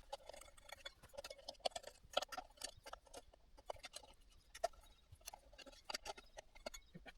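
Light, irregular clicks and taps of ceiling fan parts being handled, several a second.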